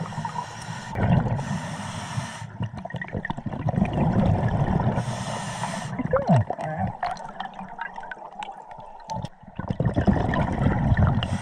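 Scuba diver breathing through a regulator underwater: hissing breaths and bubbling exhalations every few seconds, over the low rush and rumble of the river current.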